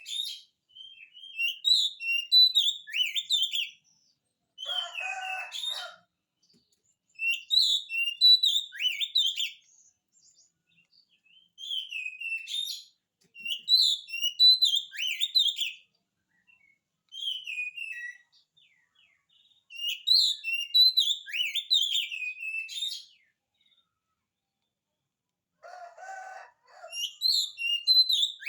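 Oriental magpie-robin singing: phrases of quick, varied whistled notes, each a second or three long with short pauses between. Twice, at about 5 s and near the end, a lower, harsher call breaks in.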